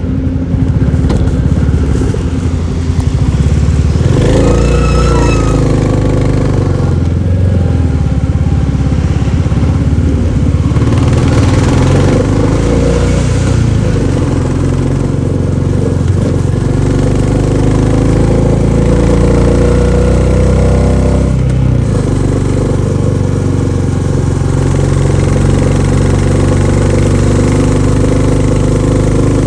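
Royal Enfield Classic 350's single-cylinder engine thumping through its stock exhaust on the move. The pitch rises again and again as it accelerates and falls as it eases off, with a clear drop about 22 seconds in.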